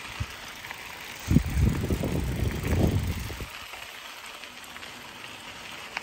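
Mountain bike tyres rolling on a gravel trail, a steady gritty hiss. From about a second in, gusts of wind buffet the microphone with low rumbles for about two seconds.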